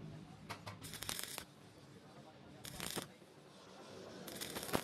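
Stick-welding arc crackling and sputtering as a rod electrode runs a bead on the corner joint of thin-walled square steel tube. It comes in irregular spells of dense crackle, about half a second in, around three seconds and near the end, with fainter crackle between.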